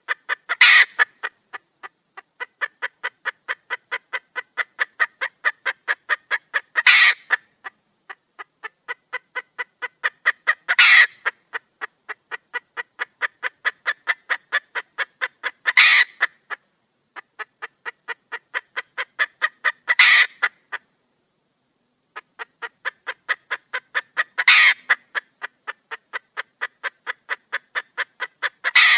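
Red junglefowl hen calling to attract a mate: runs of short, rapid clucks at about four a second, each run ending in a louder, longer call, repeated about six times.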